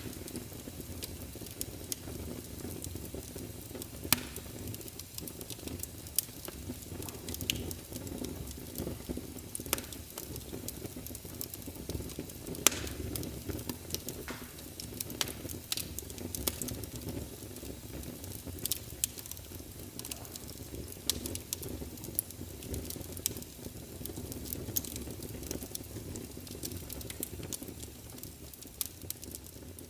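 Wood fire crackling in a fireplace, with frequent sharp pops, the loudest about four seconds in and again near thirteen seconds. Under it runs a steady low rush of rain.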